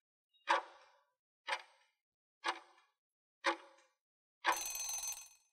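Quiz countdown timer sound effect: four ticks, one a second, then a longer ringing tone of about a second marking the end of the countdown.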